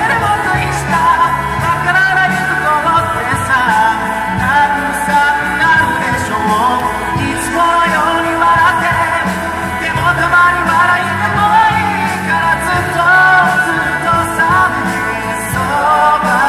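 Male vocalist singing a pop song live into a microphone over a pop accompaniment with a steady bass line.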